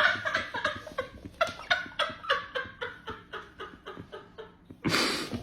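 A person laughing in a long run of short "ha" pulses, about four or five a second, fading away, then a short rush of breathy noise near the end.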